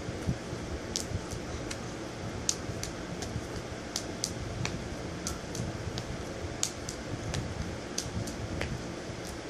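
Juggled balls landing in the hands: short soft slaps at an uneven pace, about two a second, over the steady hum of a fan.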